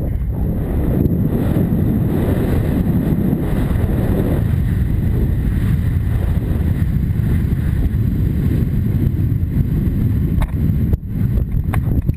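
Wind rumbling steadily on a helmet-mounted camera's microphone as the horse moves at speed, with a few sharp knocks near the end.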